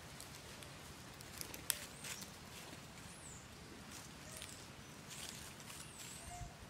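Several faint, short high-pitched squeaks or chirps, a second or so apart, over a quiet background, with a couple of light clicks about a second and a half in.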